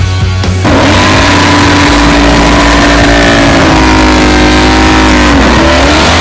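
Modified Harley-Davidson drag bike's V-twin engine revved up sharply and held at high revs for several seconds. The revs dip briefly near the end, then rise again.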